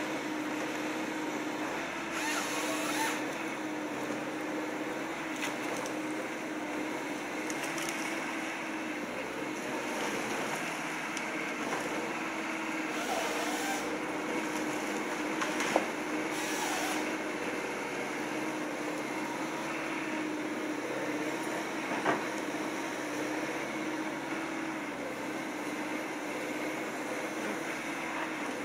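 Hyundai 160 excavator's diesel engine running steadily as it works a Ponsse harvester head, with short bursts of hiss and two sharp cracks, one about halfway through and one later on.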